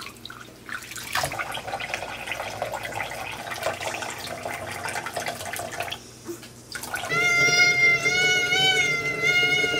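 Sphynx cat yowling: one long, drawn-out meow held steady for nearly three seconds near the end, the cat sassing at being bathed. Before it, several seconds of water splashing in a stainless-steel kitchen sink.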